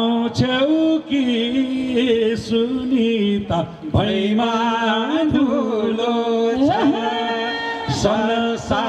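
A voice singing a Nepali folk song through a stage PA, in long held notes that waver in pitch, with a few short knocks.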